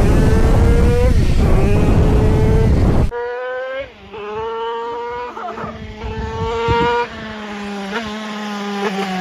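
A 172cc twin-cylinder motorcycle engine running at high revs, its pitch rising and falling. Heavy wind noise on the microphone covers the first three seconds, then an abrupt cut leaves the engine sound much cleaner.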